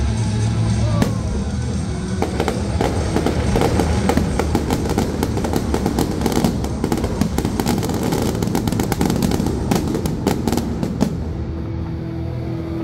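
Fireworks display: rapid crackling bursts and bangs that thicken about two seconds in and thin out near the end, with music playing underneath.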